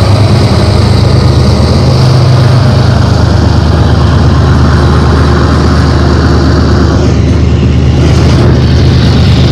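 BNSF diesel freight locomotives passing close by, their engines running loud and steady with a deep rumble. About seven seconds in, the sound thins out as the last locomotive goes by and the intermodal well cars start rolling past.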